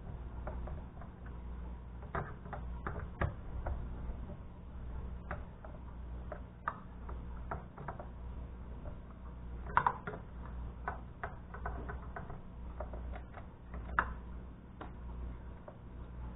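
Irregular light clicks and taps of hands handling a computer monitor's plastic housing and screws during reassembly, the sharpest about ten and fourteen seconds in, over a steady low hum.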